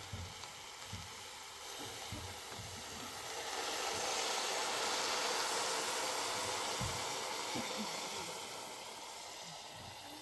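Food sizzling as it fries in a pot on a gas burner, a hissing sound that swells in the middle and eases off again, with a few soft knocks of cookware.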